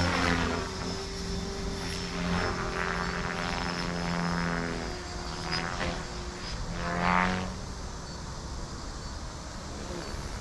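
Radio-controlled helicopter flying: a steady rotor and motor buzz that swells and fades as it makes several passes, loudest about seven seconds in.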